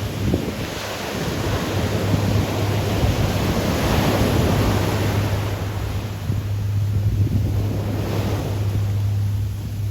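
Pacific Ocean surf breaking and washing up a beach, swelling twice, about four seconds in and again near the end, with wind buffeting the microphone as a steady low rumble.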